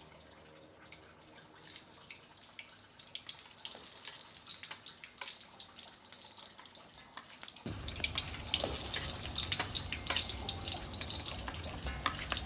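Pieces of blanched snapping turtle meat sizzling and crackling in hot cooking oil, with a dense patter of small pops. The frying gets suddenly louder and fuller about eight seconds in.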